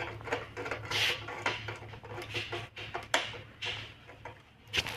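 Screwdriver turning and tightening a terminal screw on an electricity submeter: a string of short, irregular clicks and scrapes.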